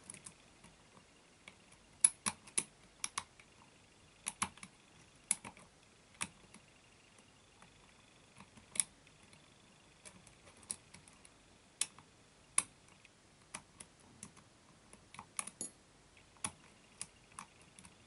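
Lock pick clicking against the pin tumblers of an ISEO euro cylinder lock held under tension: sharp single metallic clicks and ticks, irregular, roughly one every second or so, as the pins are raised and set.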